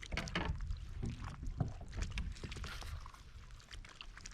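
Scattered small knocks, clicks and rustles of gear being handled in a fishing kayak, over a low rumble.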